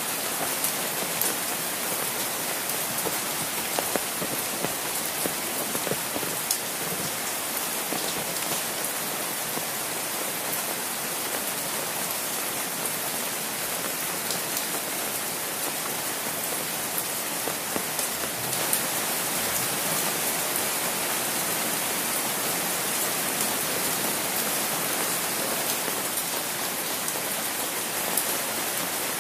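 Steady rain falling, a dense hiss with many small sharp drop ticks, growing slightly heavier about two-thirds of the way through.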